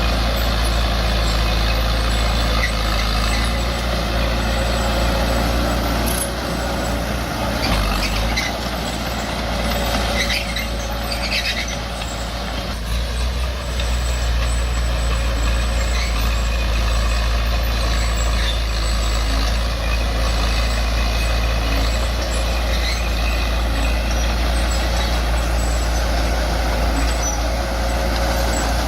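Heavy diesel earthmoving machinery running steadily with a constant low drone, with a few brief high squeaks about ten seconds in.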